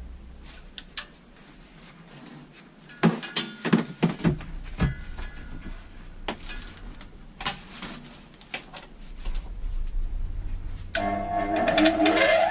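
Scattered knocks and clatter of tools being handled, then about eleven seconds in a power tool's motor starts and spins up, its whine rising in pitch.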